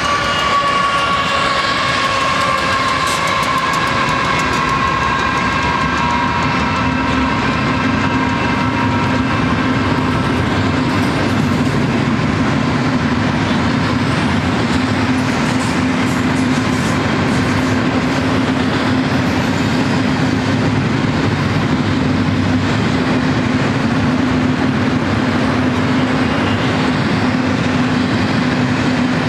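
BNSF double-stack container train: the horn of its GE ES44C4 lead locomotives sounds one long chord of several notes, fading and sagging slightly in pitch as the locomotives pull away, gone about ten seconds in. Underneath, the stack cars roll past with a steady low hum and wheel clatter.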